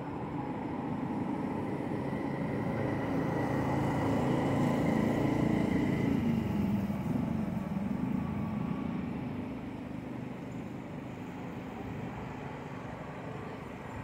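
A motor vehicle's engine getting louder as it draws near, loudest about five or six seconds in, then dropping in pitch and fading as it moves off.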